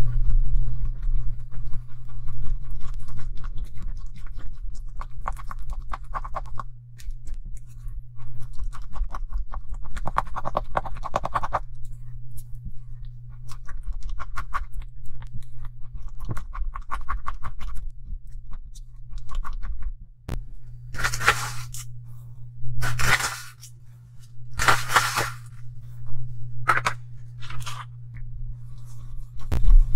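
A silicone spatula stirring and scraping a thick, wet paste of face powder and liquid in a glass bowl, with dense fine clicky, sticky scrapes that come in stirring spells. Around two-thirds of the way through come a few louder hissing rushes, and a low steady hum runs underneath.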